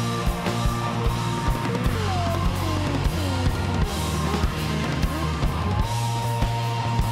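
A small band playing an instrumental passage: a drum kit keeps a steady beat under bass, electric guitar and keyboards. There are sliding, bending notes in the middle.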